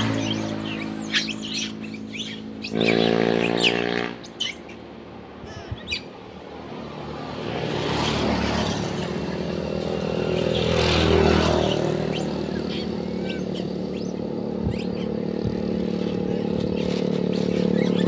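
Motor vehicles passing on the adjacent road: a steady engine tone about three seconds in, and another vehicle that swells and fades between about eight and twelve seconds. Over it, short high-pitched squeaks and chirps come from young macaques, which hang back from the food.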